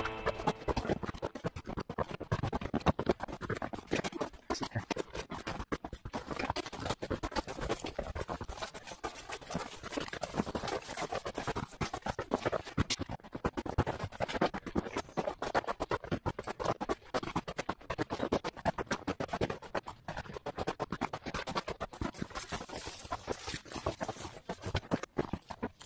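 Footsteps crunching over snow and ice along a trail: a dense, uneven run of scratchy crackles.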